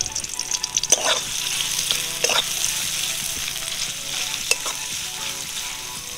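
Sliced onions sizzling in hot oil in a metal kadai, stirred with a steel spatula that scrapes across the pan a few times. The onions are being sautéed until soft.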